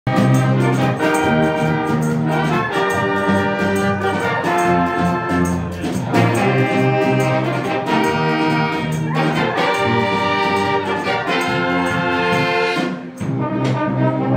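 A brass band playing live, trumpets and trombones together, an upbeat tune with a steady beat; the band cuts out for a moment near the end and comes straight back in.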